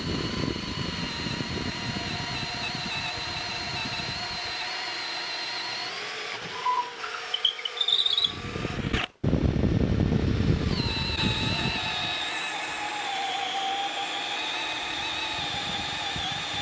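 Flex 24V brushless cordless drill boring a spade bit into a wooden beam under load: a steady motor whine over the grinding of wood chips. The bore ends and the sound changes about seven seconds in. After a brief gap near nine seconds, a second bore starts, heaviest at first.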